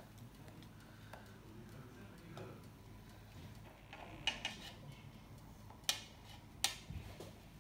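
Knife scoring the raw dough top of a börek in a round metal baking pan, soft scraping with a few sharp clicks past the middle as the blade meets the pan's rim.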